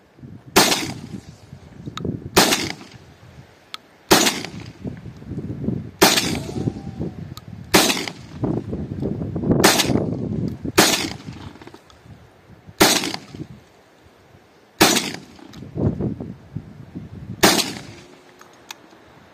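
Armsan RS-S1 12-gauge semi-automatic shotgun firing single slugs, about ten shots spaced roughly two seconds apart, each followed by a low rumble.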